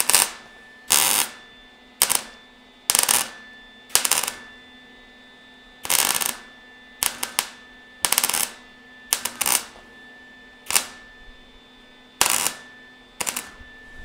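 MIG welder laying a quick series of short spot welds on thin car-body sheet metal. Each trigger pull gives a sharp crackling sizzle of under half a second, about fifteen in all, roughly one a second with brief gaps. The welds fill a gap with coat-hanger wire, and each one is let off quickly so the thin panel doesn't burn through.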